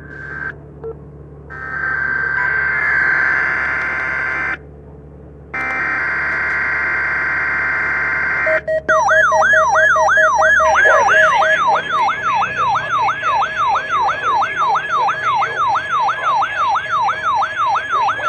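Weather-radio alert audio: a steady high tone over hiss that drops out briefly twice. About eight and a half seconds in, an electronic alarm tone starts and sweeps rapidly up and down, about three or four times a second, like a yelping siren.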